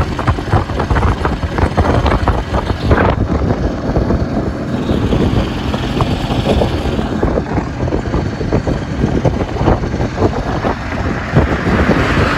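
Wind buffeting the microphone over the running engine and road noise of an open-backed loader rickshaw travelling at speed.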